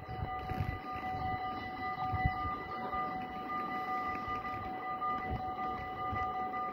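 EBA level-crossing bells ringing steadily with a continuous warning tone as the barriers rise after the train has passed, over a low rumble.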